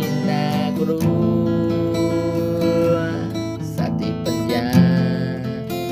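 Folk song music with strummed acoustic guitar.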